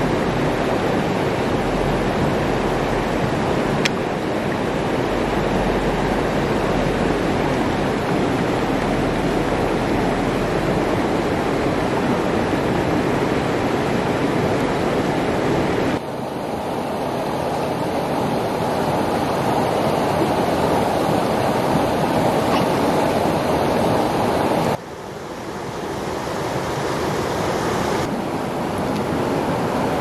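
Steady rush of a stream's running water. The noise shifts abruptly about halfway through and again near the end, dipping and then building back up each time.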